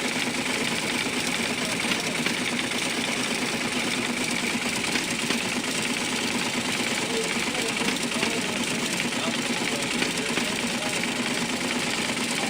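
Adding machines running with a continuous rapid mechanical clatter over a steady motor hum.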